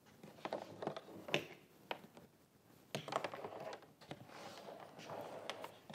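Handling noises from a plastic coolant tank: scattered light clicks and knocks, about a dozen, with soft rubbing as the tank, its cord and plug are moved.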